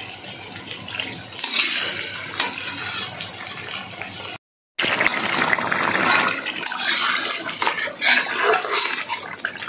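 Metal spoon stirring and scraping chilli sambal frying in a steel wok, with sizzling and clinks against the pan. The sound cuts out for a moment just before halfway. After that, a ladle stirs crab pieces through the wetter sauce with wet, sloshing sounds.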